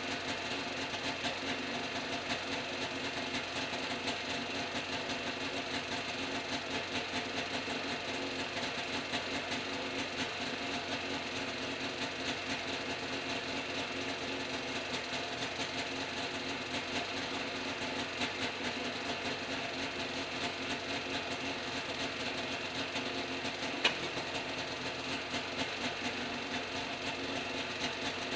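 Small engine of a backpack helicopter running steadily at a constant speed while its carburetor is being tuned, with one sharp click late on.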